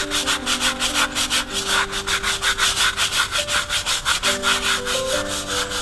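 Stiff scrub brush scrubbing wet, soapy concrete in quick back-and-forth strokes, about six a second, working mold off the floor.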